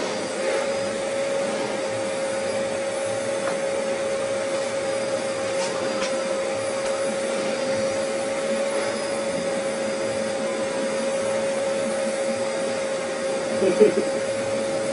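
Vacuum cleaner running steadily with a constant whine. Its hose is drawing in long hair to gather it into a ponytail.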